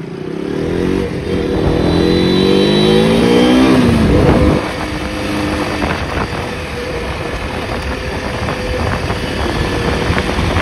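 KTM motorcycle engine accelerating through the gears: its pitch climbs, dips at a gear change about a second in, and climbs again until about four seconds in. The throttle then eases and the engine runs steadily at cruising speed under road and wind noise.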